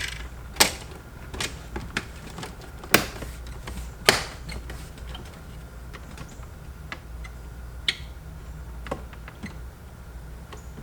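Dry carbon interior trim panel being pressed into a car dashboard, its plastic retaining clips snapping home in a series of sharp, irregular clicks, the loudest about three and four seconds in.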